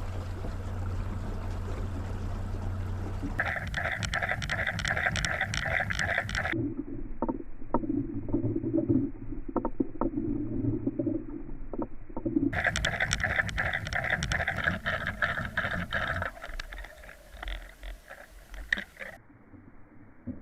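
Boat motor running during trolling, with water and wind noise, heard across several spliced clips whose sound changes abruptly at each cut.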